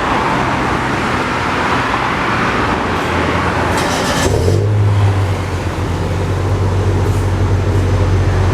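Toyota Avanza's 1.5-litre four-cylinder engine idling steadily through an aftermarket exhaust with a DTM-style tip. About four seconds in, a high hiss drops away and the low exhaust note deepens and grows stronger.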